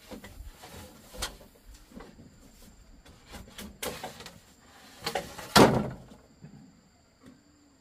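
A series of scattered knocks and clatters, like things being handled or a door moving, the loudest a heavier knock about five and a half seconds in.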